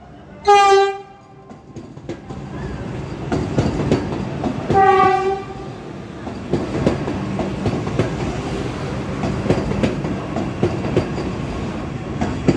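Vande Bharat Express electric train sounding its horn in two short blasts, about half a second in and again about five seconds in, while pulling into the platform. Under and after the blasts come the rumble of the coaches rolling past and a steady clatter of wheels over rail joints.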